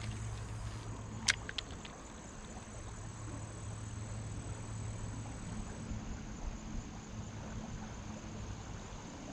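Steady high insect trill, crickets, over a low steady rumble, with a couple of sharp clicks a little over a second in as the spinning reel is worked after the cast.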